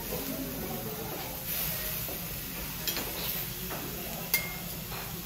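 Vegetables sizzling on a steel teppanyaki griddle, with metal spatulas scraping and clicking on the plate. A sharp metal click a little over four seconds in is the loudest sound.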